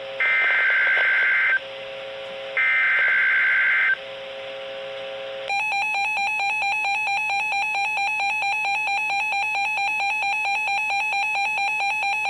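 Emergency Alert System SAME header: two bursts of the buzzy digital data tone, each about a second and a half long, with a pause of about a second between them. About five and a half seconds in, a loud, steady alert attention tone starts and holds, with a slight regular pulse.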